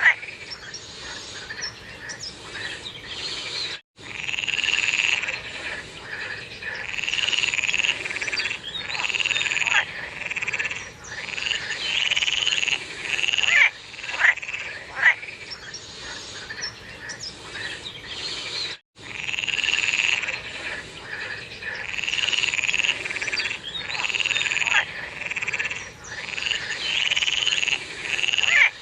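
Chorus of frogs calling in the rainy season, many overlapping croaks and trills repeating densely. The sound cuts out briefly twice.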